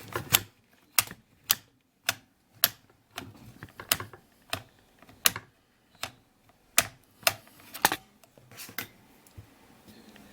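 Mercedes door lock mechanism clicking as it is worked by hand: about fifteen sharp clicks, unevenly spaced, roughly one to two a second.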